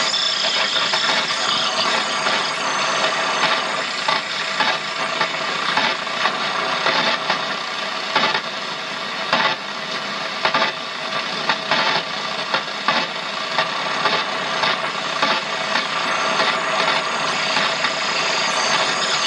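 Medium-wave AM radio static hissing and crackling from a Sony tuner being swept between stations, with a chuh-chuh interference from the stepper motor turning its tuning knob.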